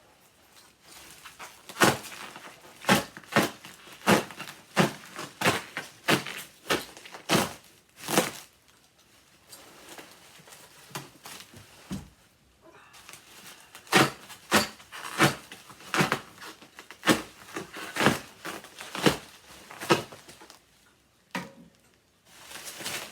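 Bubble wrap and packing tape being pulled off a boxed vacuum cleaner: plastic crinkling with sharp snaps and rips every second or so, easing off for a few seconds in the middle.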